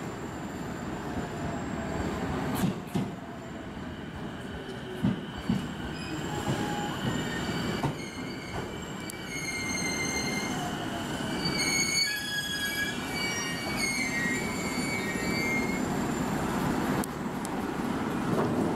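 JR East E233 series ten-car electric train pulling into the platform and braking to a stop, its wheels rumbling on the rails. From about nine to fourteen seconds in, high squealing tones step down in pitch as it slows.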